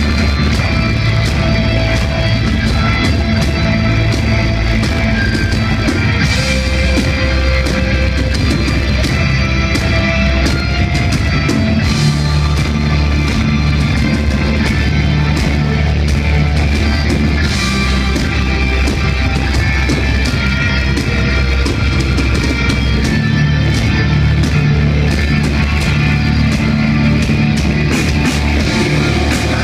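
Heavy metal band playing live: distorted electric guitars, bass and drums, loud and unbroken.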